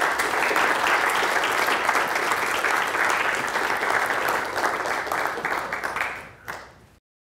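Audience applauding steadily. The clapping dies away about six seconds in, with one last stray clap, and then the sound cuts off.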